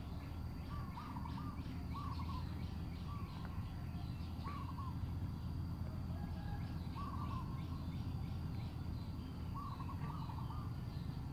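Birds calling: short clusters of quick notes repeating every second or two, with fainter high chirps, over a steady low drone.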